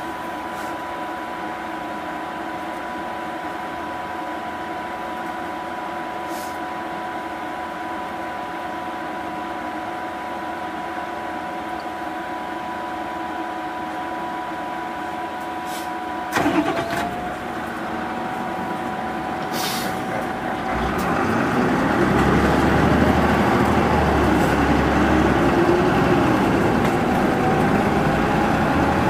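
Cabin sound of a Mitsubishi Fuso Aero Star 2PG-MP38FK city bus. A steady hum with a few high steady tones runs while the bus stands, then a short loud burst comes about sixteen seconds in. After that the engine grows louder and rises in pitch as the bus pulls away and accelerates.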